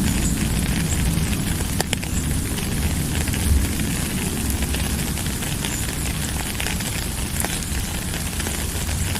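Steady rainfall: a dense patter of drops over a low rumble, with a sharper tap about two seconds in.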